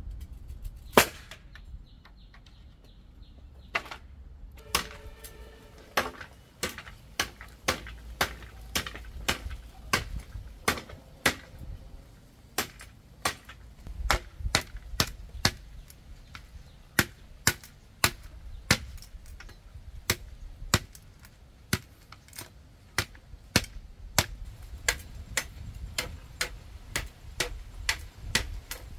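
Sharp knocks struck over and over, like chopping or hammering: one loud knock about a second in, then from about four seconds a steady run of about two a second.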